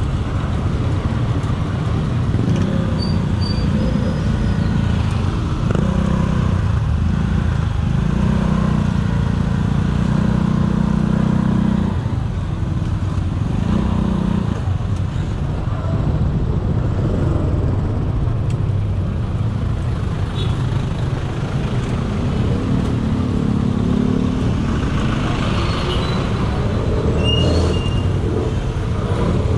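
Congested street traffic heard up close: motorcycle, tricycle and car engines running alongside and ahead, a steady low rumble with engine notes swelling and fading as vehicles pass.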